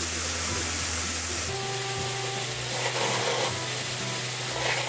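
Food sizzling steadily on a tabletop grill, with faint background music coming in about a second and a half in.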